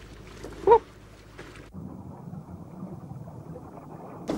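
Wind and sea noise on a boat's deck, with a brief shout about a second in. Just under two seconds in it cuts abruptly to a dull, muffled rush that lasts until near the end.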